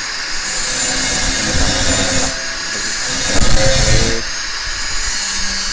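Handheld angle grinder running at full speed with a high whine, grinding into the steel rim of a large circular saw blade to cut the seats for new cutting tips. The grinding is loudest a little past halfway.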